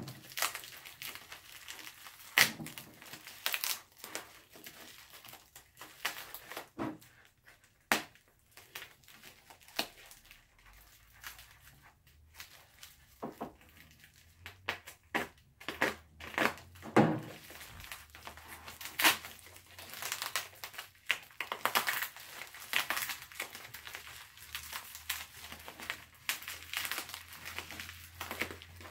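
Plastic bubble wrap crinkling and crackling as it is pulled and cut open by hand, with irregular sharp crackles and clicks that come thicker in the second half.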